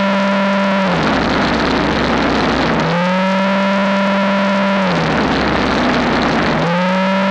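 Two-stage snowblower running under changing load: its drone comes up in pitch, holds for about two seconds, then sags away into a rougher rush as snow is taken in, repeating about every four seconds.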